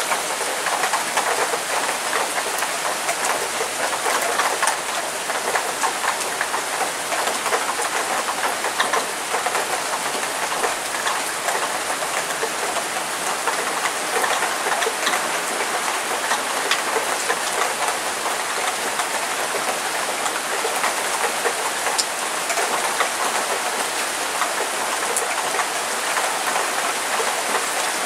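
Heavy downpour: a steady, even hiss of rain with many close drops ticking and splashing on hard surfaces.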